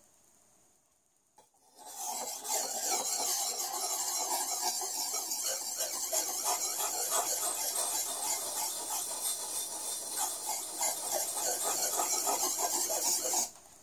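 Kitchen cleaver's edge ground in small circles on an oiled natural grit whetstone: a steady rasping scrape that starts about two seconds in and stops abruptly just before the end. The circular strokes are meant to wear the edge down quickly while holding the bevel angle.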